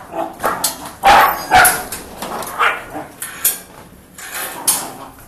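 Belgian Malinois dogs barking: a run of short barks, the two loudest about a second in and half a second apart, then more scattered barks.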